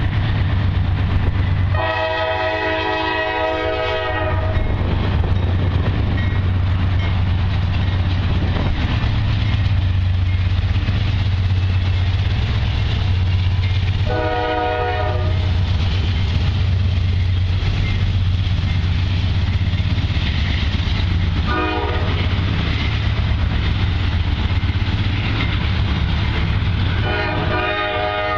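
Norfolk Southern freight train passing with a steady low diesel-locomotive rumble. Its air horn sounds long, long, short, long: the standard grade-crossing signal.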